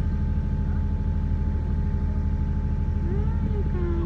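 Steady engine and road drone of a car driving, heard from inside the vehicle. A short voice-like sound rises and falls near the end.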